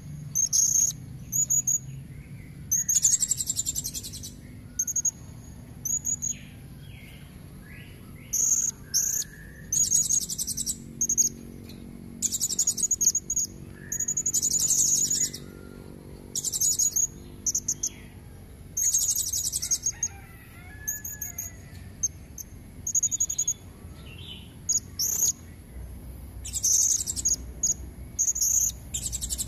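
Blue-crowned hanging parrot (serindit) calling: repeated bursts of shrill, very high, rapid chirping trills, some brief and some lasting a second or two, at irregular gaps. The recording is offered as a female's call used to lure red-throated males.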